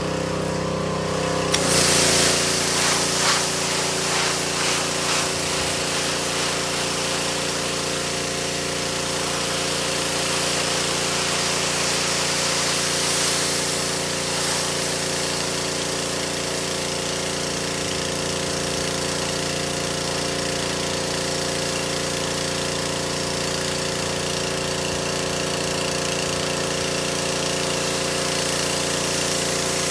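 Pressure washer running steadily; about two seconds in the high-pressure spray comes on with a loud hiss and keeps going as the soaped carpet is rinsed.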